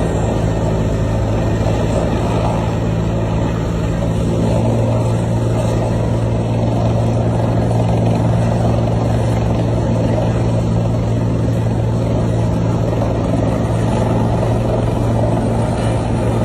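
Heavy machinery running steadily: a loud, unbroken drone with a strong low hum.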